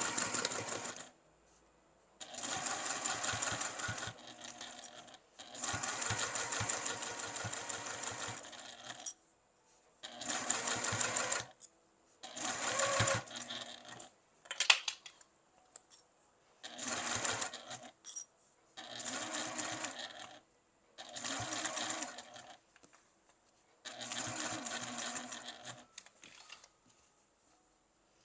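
Vintage sewing machine stitching in a series of short runs, about nine in all, each lasting one to three seconds, with brief stops between them. There is one sharp click about halfway through.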